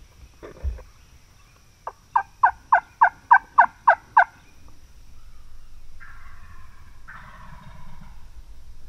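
Wild turkey yelping: a run of nine loud yelps at about four a second, each note dropping in pitch.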